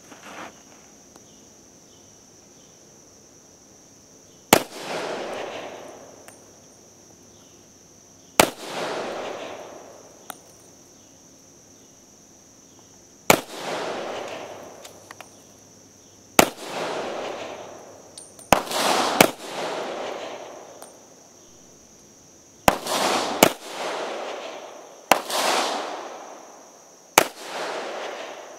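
A Campo Giro 1913-16 semi-automatic pistol firing reduced-load 9mm Largo, about ten sharp shots at irregular intervals, some in quick pairs. Each shot is followed by an echo that dies away over a second or more.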